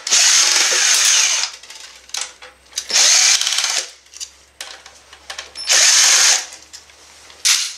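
Electric screwdriver running in about four short bursts, undoing screws from the printer's sheet-metal frame. The longest burst comes at the start, and small clicks of handling fall between the bursts.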